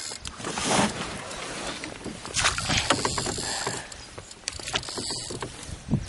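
Oars of a small rowboat pulling through lake water, the water swishing with each stroke, the two clearest strokes about two seconds apart.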